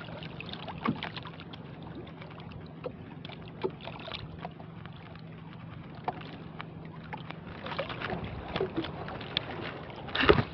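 Small clicks and rustles of hands threading live shrimp bait onto a handline fishhook aboard a small outrigger boat, over a low steady hum that fades after about seven seconds. Near the end comes one short, louder burst as the baited handline is thrown out into the sea.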